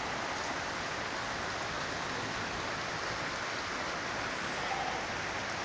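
Heavy rain falling in a steady, constant downpour, with no let-up.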